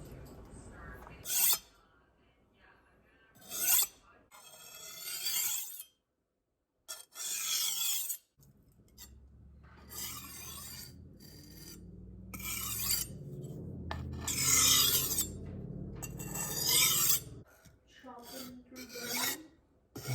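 Knife blade drawn across a whetstone in about nine separate gritty slides, each lasting a second or two. A slide starts smooth along the side of the blade and turns rough.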